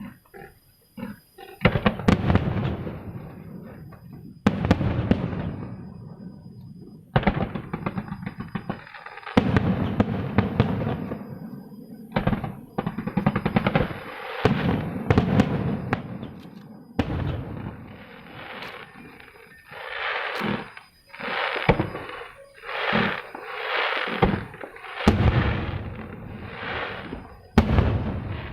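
Aerial fireworks bursting one after another, each a sudden bang with a fading crackle, coming about once a second in the second half.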